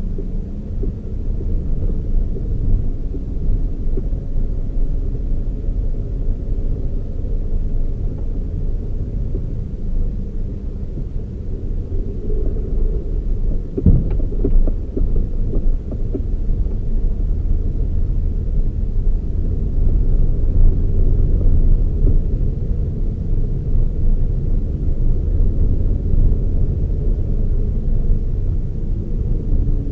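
Toyota Raize small SUV being driven, a steady low rumble of engine and road noise, with a single thump about halfway through.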